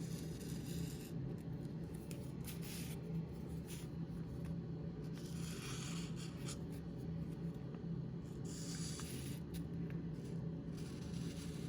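Felt-tip marker strokes rubbing across paper in several short stretches, over a steady low hum.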